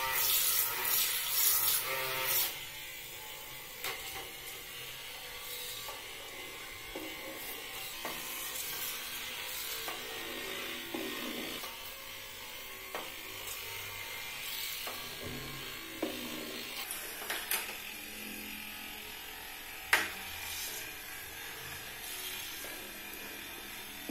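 Small DC motor of a homemade soda-can boat whirring steadily as it drives its propeller through bathtub water. The first couple of seconds are louder and splashier, and a few light knocks come through later.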